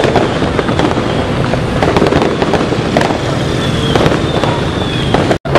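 New Year's fireworks and firecrackers going off in irregular sharp cracks over a steady din of a crowded street packed with motorcycles, with a couple of short falling whistles in the second half. The sound cuts out for an instant just before the end.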